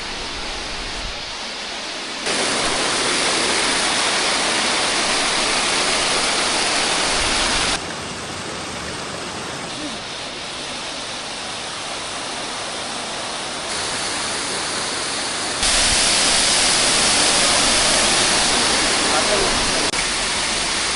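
Loud, steady rush of a waterfall and churning water, with no pitch or rhythm in it. The level jumps up or down abruptly a few times.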